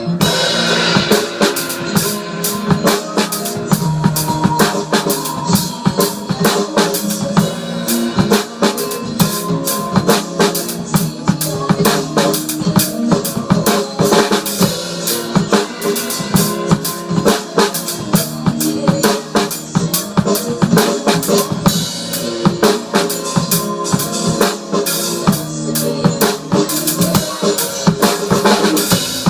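Drum kit being played continuously: a steady, busy beat of bass drum, snare and cymbals, with many strikes each second.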